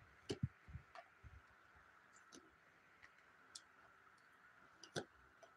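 Faint clicks and soft taps of a deck of cards being shuffled and handled, several in quick succession in the first second, then a few scattered ones.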